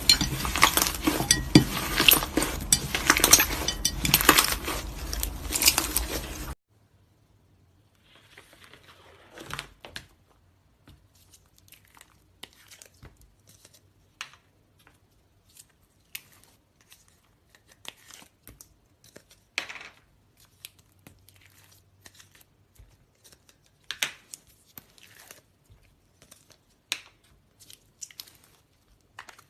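Slime being pressed and poked by hand, crackling and popping densely and loudly, then after a sudden cut, much quieter scattered crackles and clicks.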